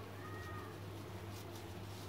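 Quiet room noise with a steady low hum. About a quarter second in comes a short, faint, high-pitched animal call lasting about half a second.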